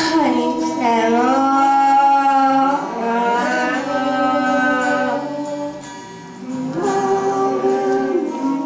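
A song sung to acoustic guitar accompaniment, the voice holding long notes that glide from one pitch to the next.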